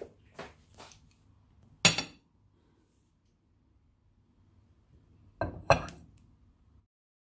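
Sharp clinks of dishes or utensils knocking together, the loudest about two seconds in and then two more close together near the end, with a few faint clicks at the start.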